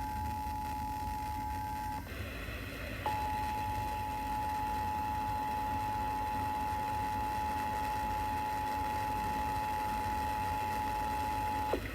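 Emergency Alert System attention signal from a radio: the two-tone 853 and 960 Hz chord sounding steadily, breaking off about two seconds in, silent for about a second, then sounding again for about nine seconds until just before the end. A steady low rumble lies underneath.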